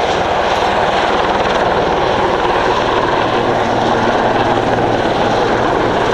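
Agusta-Sikorsky HH-3F Pelican helicopter flying low past, its main rotor beating in a fast, steady rhythm over the noise of its twin turboshaft engines.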